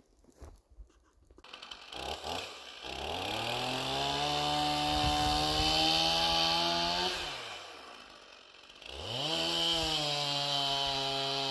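Two-stroke chainsaw revving up to full throttle and holding there, easing back about seven seconds in, then revving up again about nine seconds in. A few faint knocks come before the first rev.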